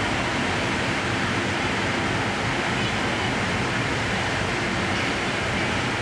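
Steady rushing noise of a JR East EF510 electric locomotive rolling slowly into the platform at the head of a sleeper train, even in level throughout.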